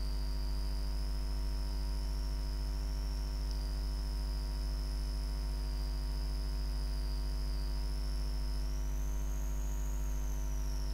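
Steady electrical hum from the recording chain, with a faint high whine that drifts slightly up and down in pitch.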